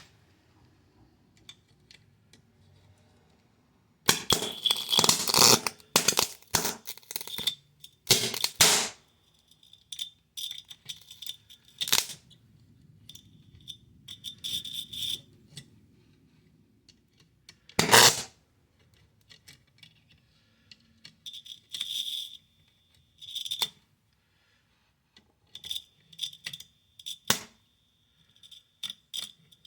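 Carbon monoxide detector being handled: irregular clicks, knocks and rattles, several of them carrying a short high tone, with one sharp knock at about eighteen seconds, the loudest.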